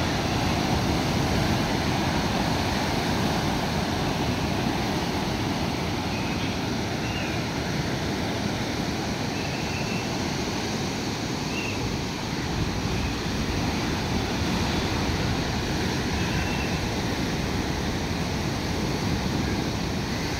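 Heavy surf: large waves breaking and foaming over shore rocks, a continuous, even rush of water.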